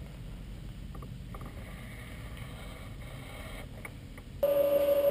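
A low steady rumble, then a little over four seconds in a loud, steady machine hum with a clear tone cuts in suddenly.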